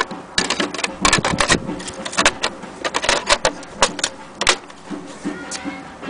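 Vintage portable Erika typewriter being typed on: a quick, irregular run of sharp key strikes for about four seconds, then a few scattered, softer clicks near the end.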